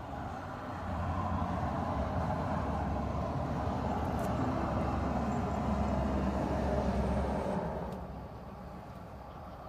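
A motor vehicle passing out of sight: engine and tyre noise swell about a second in, hold steady, and fade away near the end.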